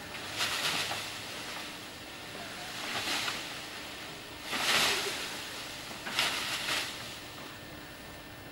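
Wind gusting on an outdoor camcorder microphone: several swells of rushing noise that rise and fall about every second and a half, the strongest just before the middle.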